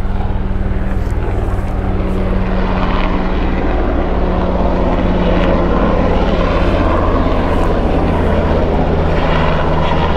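Mountain rescue helicopter flying over: a loud, steady drone of rotor and engines.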